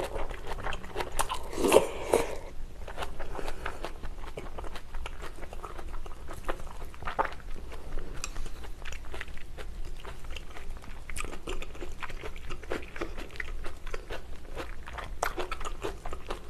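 Close-miked eating of braised kimchi and pork: a louder burst of mouth noise as a mouthful is taken in about two seconds in, then steady wet chewing with many small crunches and clicks.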